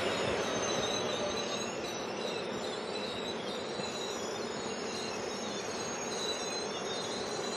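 Incheon Subway Line 1 electric multiple unit running past on the track: a steady rumble of wheels on rail, with faint high whining tones that drift slightly in pitch.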